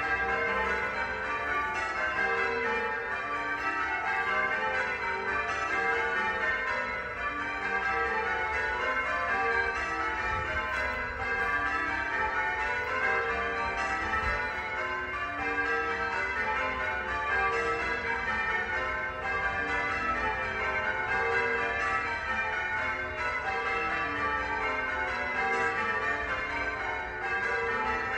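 Church bells ringing without a break, many bells struck one after another in quick succession, their tones overlapping.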